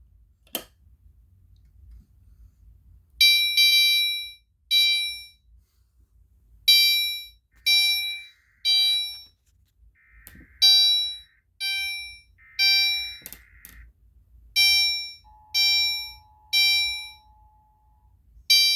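Gentex fire alarm horn going off in a temporal evacuation pattern: loud beeps about half a second long, in groups with short pauses, starting about three seconds in. Short hissy bursts come between some of the beeps.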